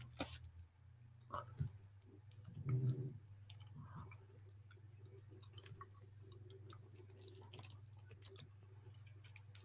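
Faint, scattered clicks and taps from drawing at a computer (stylus, mouse or keyboard) over a steady low hum, with a brief low voiced hum from a person about three seconds in.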